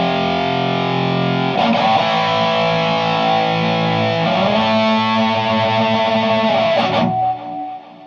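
Electric guitar through a Naughty Amps Li'l Bitch head on a crunch tone, played through an Orange 4x12 cabinet: distorted chords held to ring out. A new chord is struck about a second and a half in and slides up in pitch about four seconds in. A last hit near the end is cut off, and the ring fades away.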